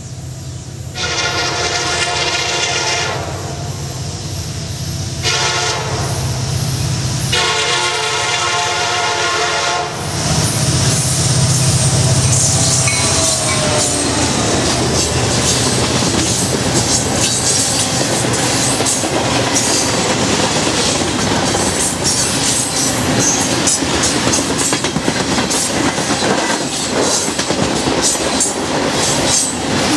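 CSX freight train led by an EMD SD70MAC diesel locomotive, sounding its air horn in three blasts as it approaches, the last two close together. The locomotive passes at speed about ten seconds in with a loud engine hum. The freight cars follow with a steady rumble and rapid clickety-clack of wheels over rail joints.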